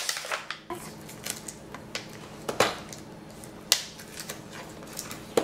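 Small plastic Peppa Pig toy figures clicking and tapping as they are handled and set down, a scattering of light irregular clicks.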